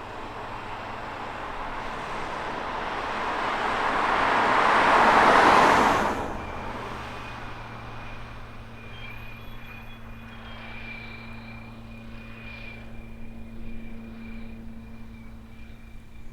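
Light aircraft passing close by. Its engine and propeller noise builds over about five seconds, peaks, then falls away sharply. A quieter, steady engine hum with a thin high tone carries on after it.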